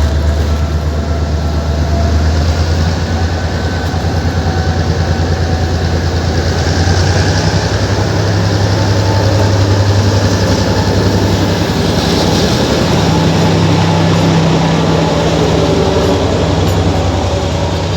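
Abu Qir commuter train running on the rails: a loud, steady low drone with rail and wheel noise, and faint thin squealing tones from the wheels in the first few seconds.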